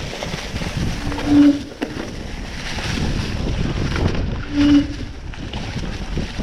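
Steady wind rush over the microphone of a moving mountain bike rider, with two short low tones, one about a second and a half in and another near five seconds.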